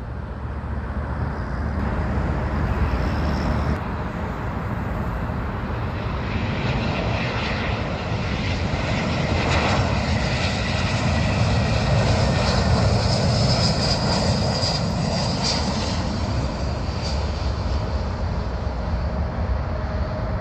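Airbus A320 jet engines as the airliner passes close by: a steady rushing roar that swells to its loudest about twelve seconds in and then eases slightly, with a high engine whine over the middle stretch.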